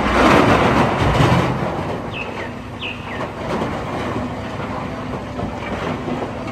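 Heavy wheel loader's diesel engine running as it tips a bucket of dark earth into a dump truck, the load pouring in with a loud rush in the first second or so, then steady engine rumble. A couple of short bird chirps sound about two to three seconds in.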